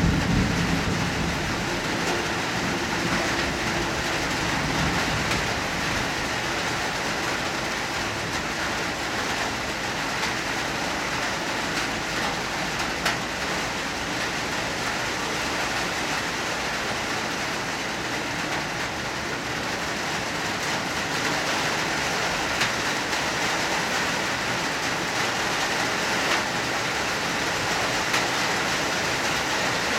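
Hard rain falling steadily, a dense even hiss with scattered louder drop taps, and a low rumble at the start.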